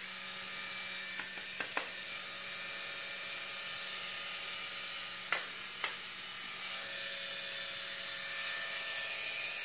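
Water running into a bathtub: a steady hiss, with a few light clicks over it.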